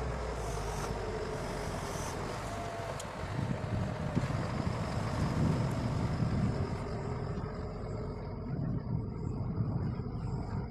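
A heavy machine's engine running steadily, with a low rumble that swells a little in the middle.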